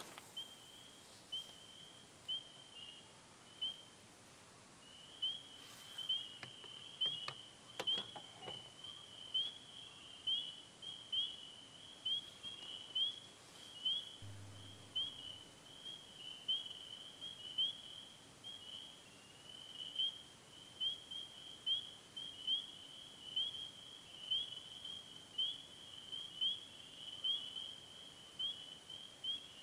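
A steady run of short, high chirps, each rising in pitch, about two a second. A few faint clicks come about six to eight seconds in, and a brief low thump about fourteen seconds in.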